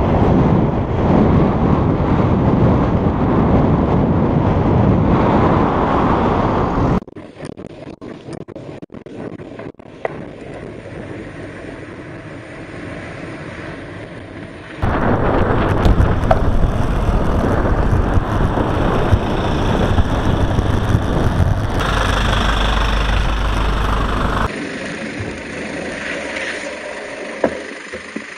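Wind buffeting a bicycle helmet camera's microphone while riding along a road with motor traffic. It is loud for the first seven seconds and again from about fifteen to twenty-four seconds, and quieter in between. Near the end the bike is stopped beside traffic, with a box truck's engine idling.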